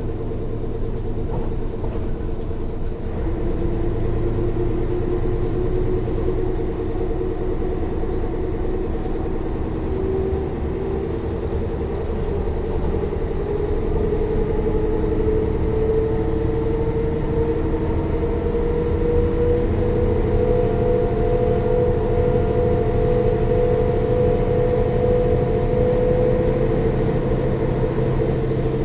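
Interior sound of a Mercedes-Benz O 405 N1 city bus under way: the loud diesel engine running, with the whine of the rear axle drive audible. The whine rises in pitch for about the first twenty seconds as the bus gathers speed, then holds steady.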